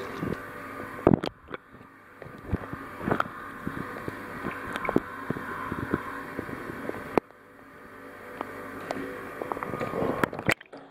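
Irregular drips and small splashes of salt water inside a flotation tank over a steady hiss, cutting out abruptly twice.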